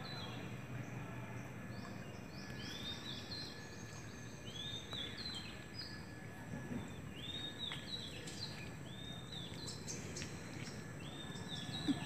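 Birds calling again and again with short whistled notes that rise and then level off, over a steady low background hum.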